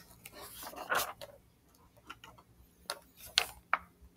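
A short soft hiss about a second in, then a few sharp clicks near the end, typical of a computer mouse being clicked and its scroll wheel turned.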